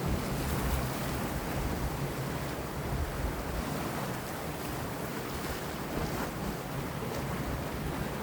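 Sea waves washing against rocks, with wind blowing over the water; a steady surf noise with a low rumble and no single loud crash.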